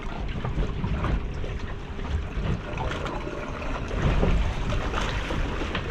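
Wind rumbling on the microphone over water sloshing and lapping around a small fishing boat at sea.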